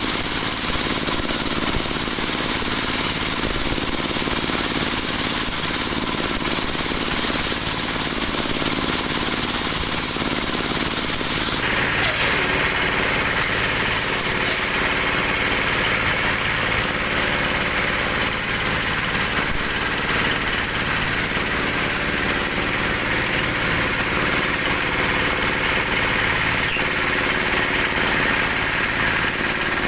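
Dowel machine running steadily as it turns wood into round broom-handle stock. About 12 seconds in, the sound shifts to a higher-pitched, steadier whine.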